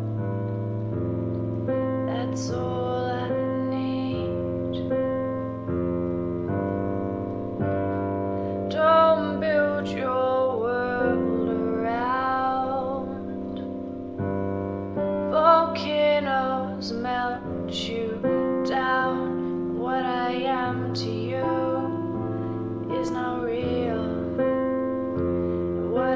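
Electronic keyboard playing slow held chords over a low bass note, with a woman singing a wordless melody over it from about eight seconds in.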